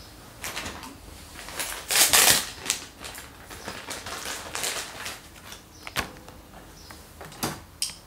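Clothing rustling and scattered light clicks and knocks as a phone is handled close up and set down. The loudest rustle comes about two seconds in, with sharp single clicks near the end.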